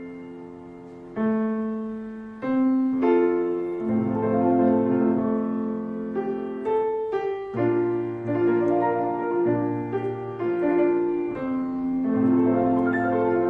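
Slow piano music, single notes and chords struck and left to fade, changing about once a second.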